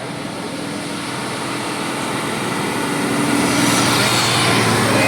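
A large bus approaching, its engine and road noise growing steadily louder, with a steady low hum under a broad rushing noise.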